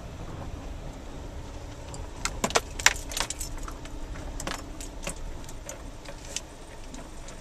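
Car moving slowly, heard from inside the cabin as a steady low rumble, with a quick cluster of sharp metallic clicks about two seconds in and a few scattered clicks over the next few seconds.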